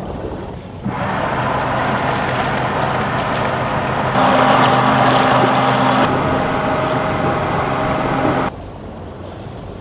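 Boat engine running steadily, swelling louder for a couple of seconds in the middle, then cutting off abruptly near the end.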